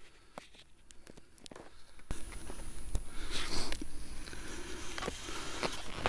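Cross-country skis and poles crunching and scraping in snow, a string of short clicks that gets louder about two seconds in, joined by a low rumble.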